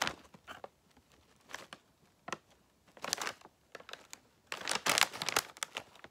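Clear plastic bag of crackers crinkling as it is handled and turned, in separate rustles, the longest and loudest about two-thirds of the way through.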